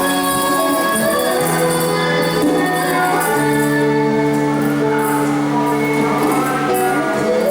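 Music for a traditional-style dance, with long held melodic notes that shift in pitch every second or two.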